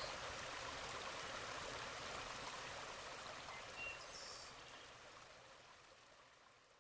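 Flowing stream water rushing steadily, fading out over the last two seconds, with a few faint short high chirps near the middle.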